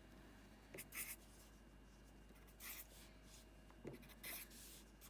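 Faint scratching of a pen writing by hand: a handful of short strokes in irregular bursts with pauses between them.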